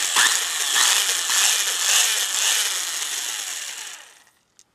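Vintage Mall electric drill running free with a high-pitched whine, then spinning down and stopping about four seconds in. This is the old drill's first test run, and it runs.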